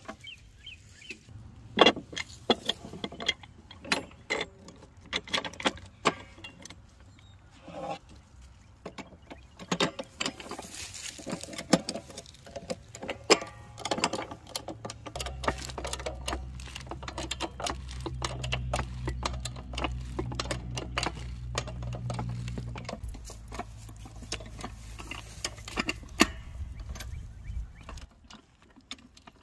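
Metal clicks and clanks of a pipe wrench and a hydraulic floor jack being set against a steel T-post and the jack being pumped, many short irregular knocks. A low steady hum runs under the second half and stops near the end.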